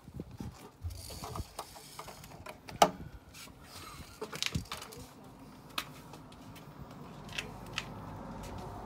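Handling clicks and knocks, then about seven seconds in a small electric tyre inflator starts up with a steady low drone, pumping up the scooter's flat front tyre.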